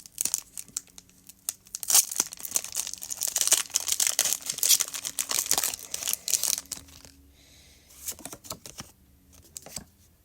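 Foil booster pack wrapper being torn open and crinkled: a dense crackling rustle for about five seconds, then fainter rustles and clicks near the end.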